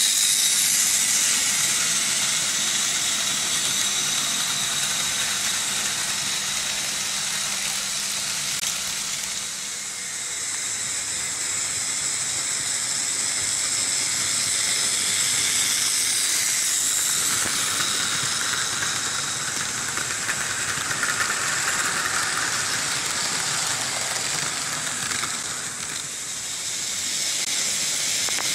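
Märklin H0 model trains running on metal M-track: a steady rushing rattle of wheels and motors, higher-pitched for several seconds about two-thirds of the way in as a train passes close.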